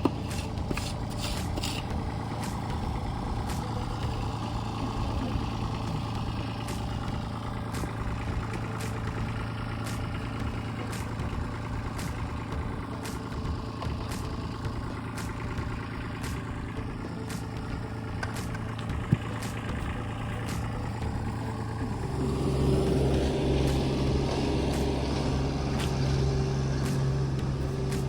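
An engine running steadily, growing louder and a little higher in pitch about three-quarters of the way through, with faint regular clicks throughout.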